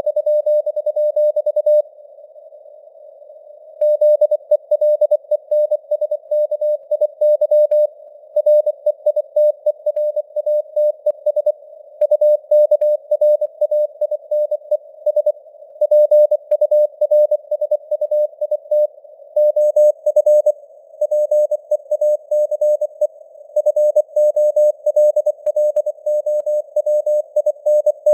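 Computer-generated Morse code at 24 words per minute: a single tone of about 600 Hz keyed on and off in dots and dashes, over a narrow band of simulated radio hiss around the tone. The sending breaks off for about two seconds near the start, then runs on without a break.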